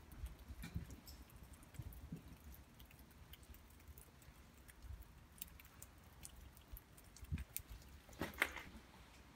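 Footsteps crunching over grit and debris on a concrete floor, with scattered small clicks and low thumps, and a louder cluster of crunches about eight seconds in.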